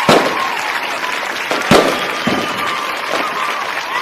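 Fireworks going off: a sharp bang right at the start and another about two seconds in, followed closely by a weaker one, over a steady crackle of bursting shells.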